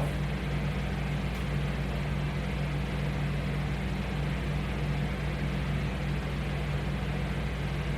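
Steady low hum with a constant hiss, even throughout and without distinct knocks or clicks.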